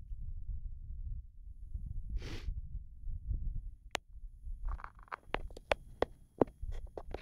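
Wind rumbling on a phone microphone, with a short hiss about two seconds in and a run of small clicks and knocks in the second half.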